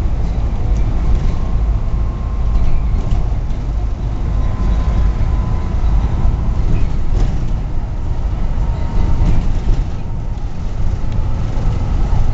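Inside a London double-decker bus on the move: steady low engine and road rumble, heard from the upper deck.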